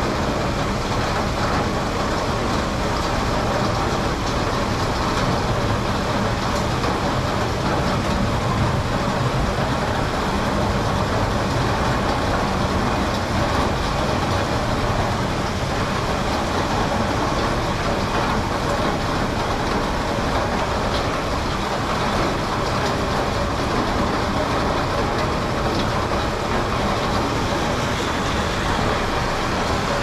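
Heavy rain pouring down steadily onto a paved road, parked cars and a lawn, an even, unbroken hiss.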